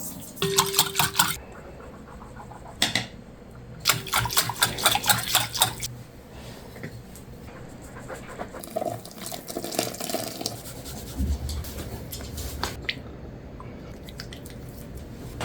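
Kitchen sounds of dough ingredients being prepared: liquid poured and ingredients stirred in a bowl, in two loud noisy spells a few seconds apart, with quieter handling of utensils and bowl between.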